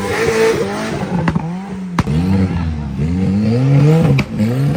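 Modified off-road 4x4's engine revving in repeated surges, pitch climbing and dropping several times as it works over the course, with a few sharp knocks in between.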